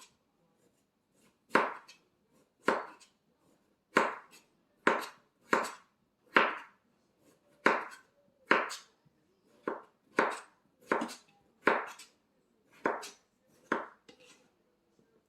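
Knife chopping through canary melon rind, trimming off leftover bits of rind. About fourteen sharp cuts come at an uneven pace of roughly one a second.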